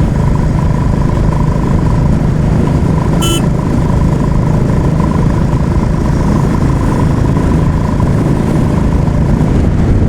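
Royal Enfield Classic 350's single-cylinder engine running steadily as the motorcycle is ridden on the road, with road and wind noise. A brief high-pitched beep sounds once, about three seconds in.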